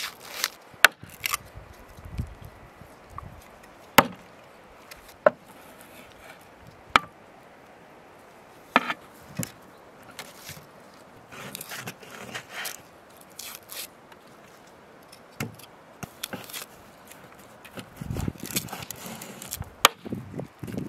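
Knife chopping raw meat on a wooden cutting board: scattered sharp single knocks, one every second or few, with softer scraping and handling sounds between them.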